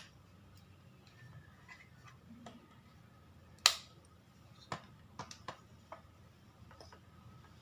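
Scattered small clicks and taps of hands handling a mini CCTV camera and its USB power cable, with one sharper click about three and a half seconds in and a quick run of lighter clicks a second or two later.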